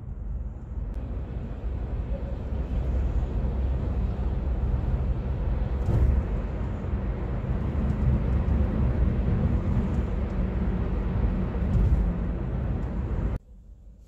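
Road and tyre noise inside a moving car's cabin at highway speed: a steady low rumble with a hiss above it, which cuts off abruptly near the end.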